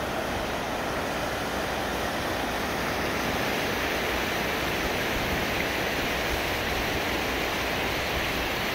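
Mountain river rushing over rocks in white-water rapids: a steady, even rush of water.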